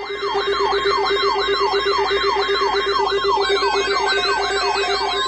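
Several weather-alert radio alarms sounding together. The main one is a fast electronic siren yelp that sweeps up and down about three times a second over a steady lower tone, with a higher warbling tone alongside. Near the end a steady single-pitch alert tone joins in.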